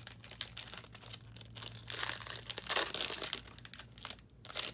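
Foil trading-card pack wrapper crinkling and tearing as it is opened by hand, in irregular rustles that grow louder about two seconds in, with a sharp crackle near the end.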